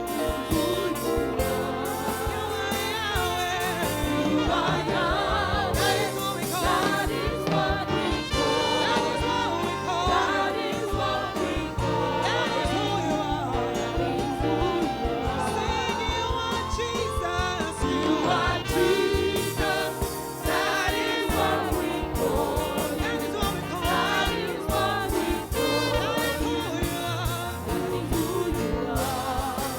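Gospel praise music: voices singing over a band with drums and keyboard.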